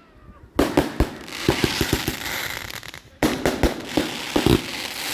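Fireworks going off in rapid runs of sharp bangs and crackles, starting about half a second in, pausing briefly around three seconds, then resuming.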